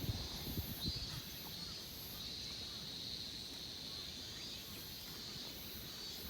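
Outdoor ambience: a steady high-pitched chirring that swells and fades about once a second, over a low rumble, with a few soft low knocks in the first second.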